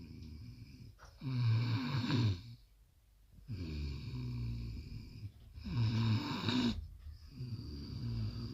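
Snoring: slow repeated breaths, each one to two seconds long, with short pauses between them.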